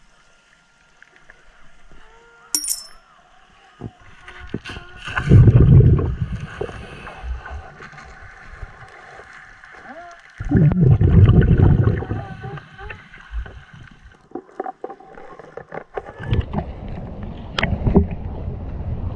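Scuba diver's exhaled bubbles from the regulator, heard underwater: three long bursts of bubbling about five seconds apart, with faint clicks and faint steady tones between them.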